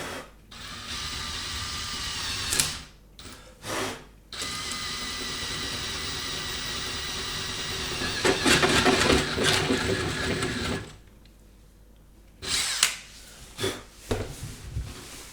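Hand drill fitted with an adjustable hole cutter boring into laminate flooring. It starts and stops twice in quick bursts, then runs steadily, getting louder and rougher for about the last three seconds before it stops about eleven seconds in. A few short knocks follow.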